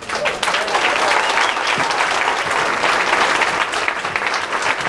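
Large crowd applauding: dense clapping that breaks out suddenly and keeps up at a steady level.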